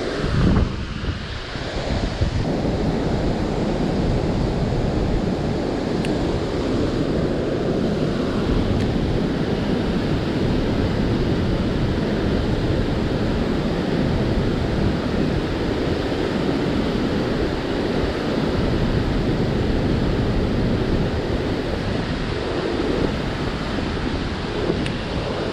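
Strong gusting wind buffeting the microphone, with choppy water around a kayak.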